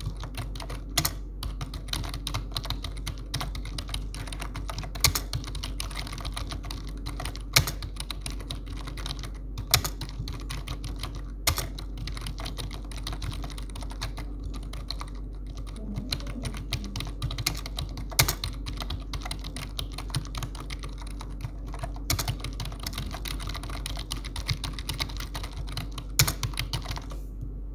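Continuous typing on a computer keyboard: a rapid, uneven run of key clicks, with a louder single keystroke standing out every few seconds.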